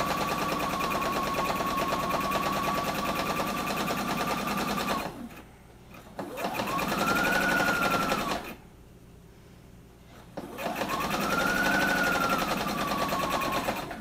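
Electric home sewing machine stitching: a steady run of rapid stitches for about five seconds, then a pause, then two shorter runs that speed up and slow down under the foot pedal.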